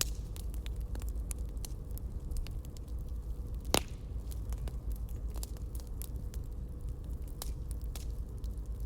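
Campfire crackling: scattered sharp pops and snaps over a low steady rumble, with one louder pop about four seconds in.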